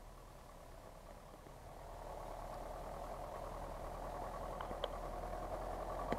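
Off-road truck's engine running at low, steady revs as the truck crawls up to and past the camera, growing louder as it comes closer. A couple of short snaps near the end.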